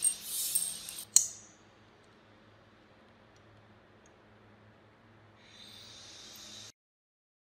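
A flat-blade screwdriver scraping and prying against the rusted iron parts of an antique lock mechanism, ending in one sharp metallic click about a second in. A soft hiss comes in near the end, then the sound cuts off abruptly.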